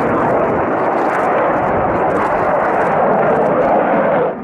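Fighter jet's engines making a loud, steady rushing roar as it flies a display manoeuvre; the sound drops off abruptly near the end.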